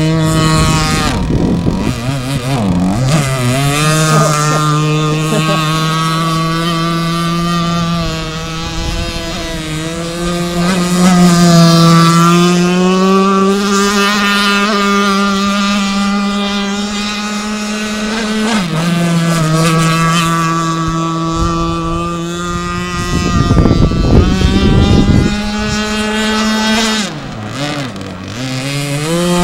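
RC blade boat's fuel engine running at high revs on a fast run, its pitch mostly steady. It drops sharply about three seconds in and again near the end, and steps down once midway, as the throttle eases off.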